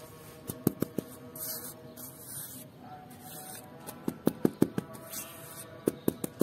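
Hands scooping damp, crumbly sand mixture into a plastic heart-shaped mould and patting it down. Sharp pats come in quick clusters: a few about half a second in, several around four seconds, and more near the end, with soft gritty rustling between them.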